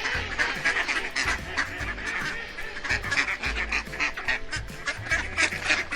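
Several ducks quacking in a rapid, overlapping run of short calls, with a low rumble coming and going underneath.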